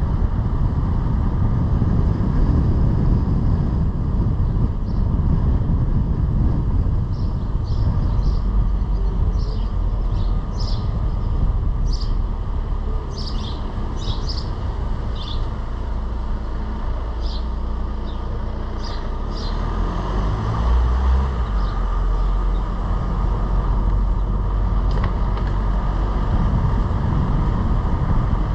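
Car driving along a road: steady low engine and tyre rumble. The engine note shifts briefly about two-thirds of the way through, and short high chirps come and go over the first two-thirds.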